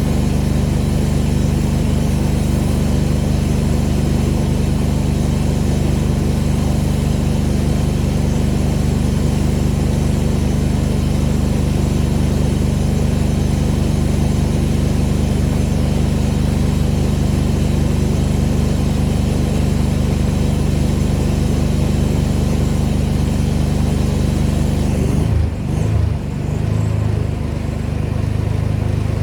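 Pressure washer's gas engine running steadily, with the spray hissing over it. About 25 seconds in, the engine note dips and shifts, then settles into a new steady pitch.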